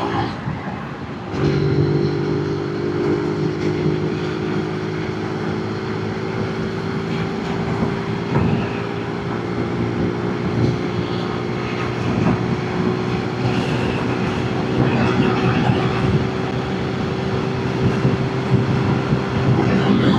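Zontes 125 Scrambler X motorcycle engine running steadily under way. Its note drops out briefly about a second in, then picks up again and holds.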